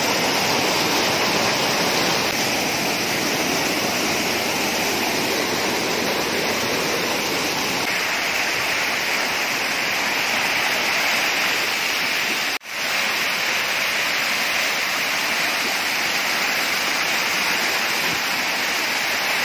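Whitewater rushing down a rock face in a fast stream, close to the microphone: a loud, steady whoosh of water. It cuts out for an instant about two-thirds of the way through, then carries on.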